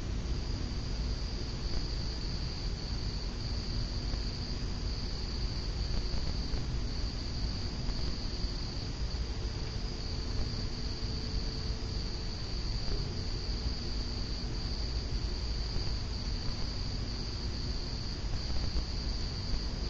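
Steady, high-pitched chirring of crickets over a low, steady rumble.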